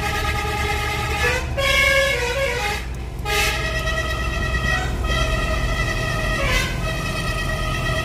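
A Basuri multi-trumpet 'telolet' bus horn playing a tune of held notes that step to a new pitch every second or two, with a brief break about three seconds in, heard from inside the car it is fitted to, over low road rumble.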